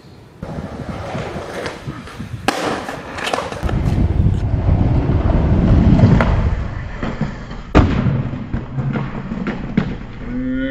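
Skateboard wheels rolling over rough paving with a loud rumble, broken by several sharp board clacks from pops, landings or the board hitting the ground; the loudest clack is about eight seconds in.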